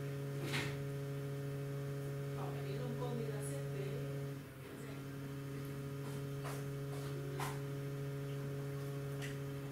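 Steady electrical hum made of several constant tones, with a few faint short clicks scattered through it.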